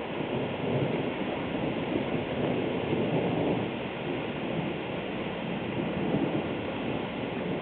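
Thunderstorm ambience: a steady rushing noise with slight swells.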